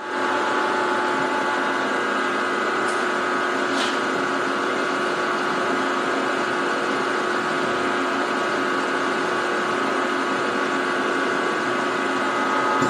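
Milling machine running steadily with a 5 mm drill bit in its chuck, drilling down into a steel bar. The machine switches on at the start and keeps an even hum throughout, with two faint ticks a few seconds in.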